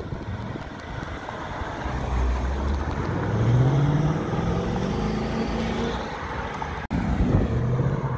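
Ford Mustang engine and exhaust accelerating away, the note rising in pitch over a few seconds. After a cut near the end the engine revs again as the car pulls around a corner.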